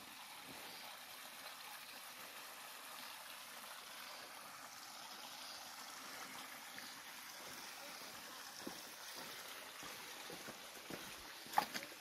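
Shallow forest stream trickling over stones, a steady rushing hiss. In the second half come scattered footsteps and knocks on the loose stones, the loudest a sharp knock near the end.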